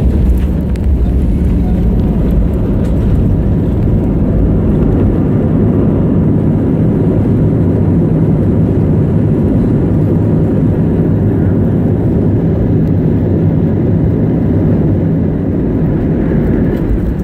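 Steady loud rumble of an Airbus A320's engines and airflow, heard inside the cabin during the landing.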